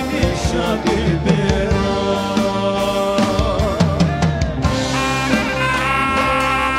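Live band music: two men singing over a drum kit, then, about five seconds in, wind instruments taking over with long held notes.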